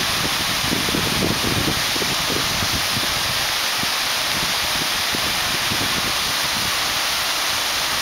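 Steady rushing hiss of water from small waterfalls cascading down a rocky cliff face, with a few brief low thumps in the first two seconds.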